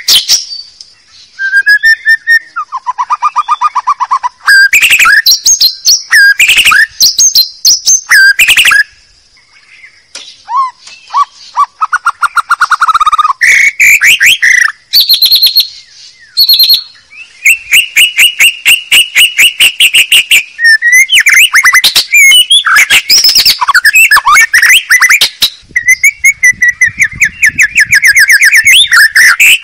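White-rumped shama (murai batu) song played at full volume as a lure call for wild shamas: a loud, ever-changing run of rapid trills, rattling repeated notes and whistled phrases, broken by short pauses.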